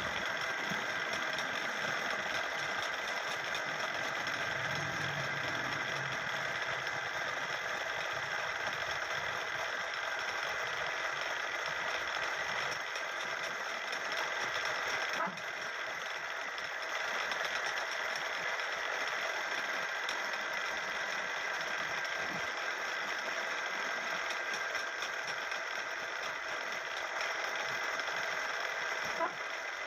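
Wood-turning lathe running steadily with a light rattle, the sound breaking slightly about halfway through and again near the end.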